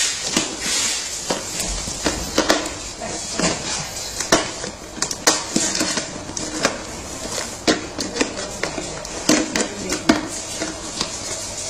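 Hard plastic clicking and knocking irregularly as a chrome-plated plastic hubcap is pressed and worked onto a toy ride-on truck's plastic wheel, several short sharp knocks a second.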